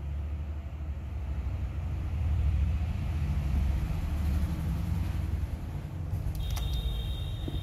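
A low rumble, then about six seconds in the piano-key play button of a Sony TC-2850SD cassette recorder is pressed down with a mechanical click. A steady high whine follows as the tape transport starts running.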